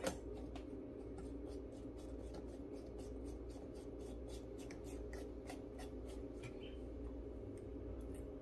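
Light bulb being screwed into a lamp socket by hand: a sharp click at the start, then a run of small clicks and scrapes as the metal base turns in the threads, over a steady low hum.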